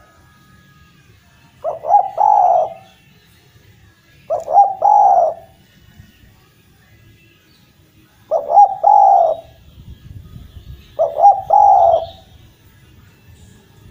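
Spotted dove (derkuku) cooing: four phrases a few seconds apart, each two quick notes running into a longer coo.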